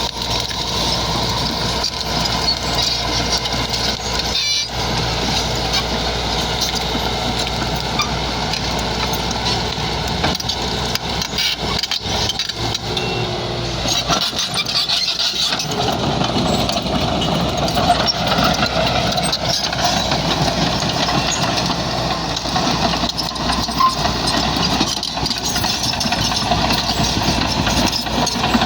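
Bulldozer's diesel engine running continuously while the machine works, with scattered knocks and clatter.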